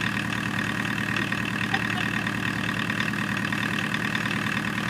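Volkswagen 1.6-litre naturally aspirated four-cylinder diesel, pulled from a 1984 Jetta, test-run on an engine stand out of the car and idling steadily with a fast, even beat.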